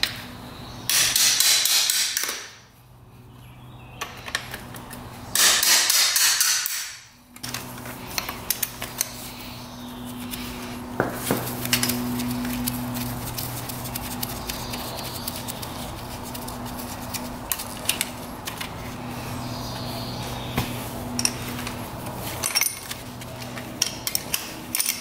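Two short bursts from a power tool, each about a second and a half, run on fasteners being removed from the engine's top end. After them come small metallic clicks and clinks of tools and parts over a steady low hum.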